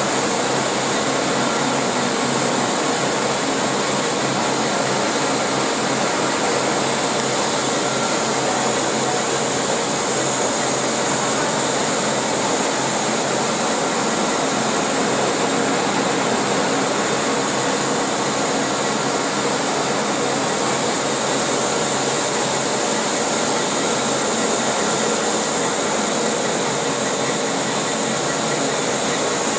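Five-roller solventless silicone coating machine running: a steady mechanical whir with a strong high hiss, unchanging throughout.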